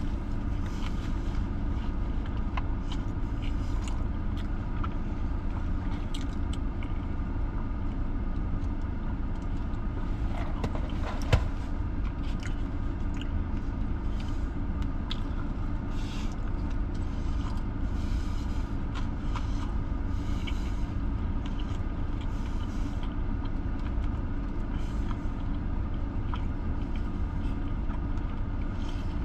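Steady low rumble of a parked car idling, heard from inside the cabin, with faint scattered clicks and rustles of eating and handling the burger wrapper and one sharper click about 11 seconds in.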